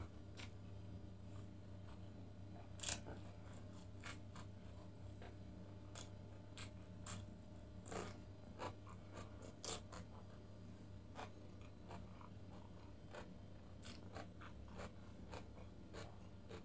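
Faint, close-miked eating sounds: a grilled lamb chop pulled apart by hand and chewed, heard as scattered soft clicks and mouth smacks, the sharpest about three seconds in.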